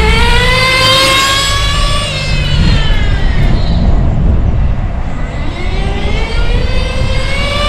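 HPI WR8 nitro RC car's G3.0 engine at high revs, a high-pitched whine that climbs in pitch as the car accelerates away, fades out by about four seconds in, then climbs again as the car runs back toward the microphone near the end. Wind rumbles on the microphone underneath.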